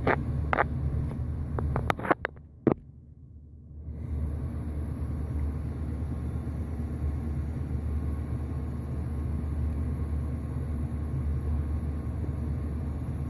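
A few light clicks and taps from handling a metal-hinged eyeglass frame in the first few seconds. After a brief dip, a steady low background rumble runs on with no other events.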